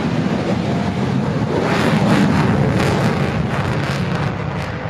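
F-22 Raptor's twin jet engines at full power on takeoff: loud, heavy jet noise that peaks about two seconds in with a rapid crackle, then eases off.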